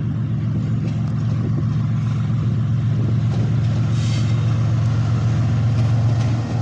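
Pakistan Railways GEU40 diesel-electric locomotive hauling a freight train, its engine running with a steady low drone that grows louder as it approaches.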